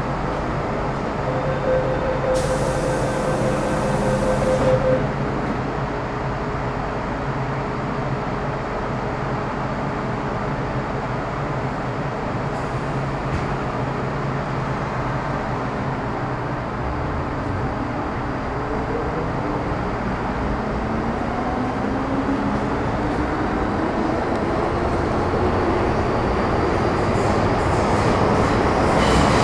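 Running sound inside an MTR Metro Cammell M-Train (CT-Stock car C239) with GEC GTO chopper traction, over a steady rumble of wheels on rail. A brief hiss comes early on, and from about halfway through several whining tones from the chopper drive rise steadily in pitch as the train gathers speed.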